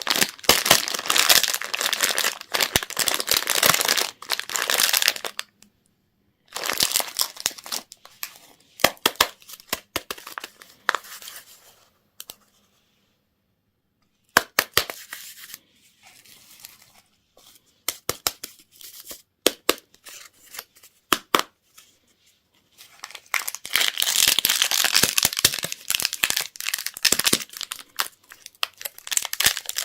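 Plastic candy wrappers crinkling and tearing as they are opened by hand. The crinkling comes in dense stretches near the start and near the end, with sparser crackles and clicks between and a few brief silences.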